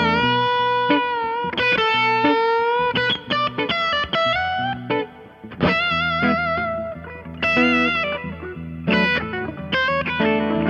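Gibson SG Special electric guitar with P-90 pickups played through a 1963 Fender Vibroverb amp: a lead melody of held notes with wavering vibrato and a few bent notes, with lower notes sounding underneath.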